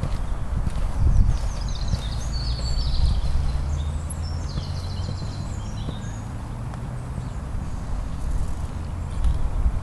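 A horse trotting on a sand arena, its hoofbeats coming as soft thuds under a steady low rumble. Short high bird chirps and trills come through for a few seconds in the middle.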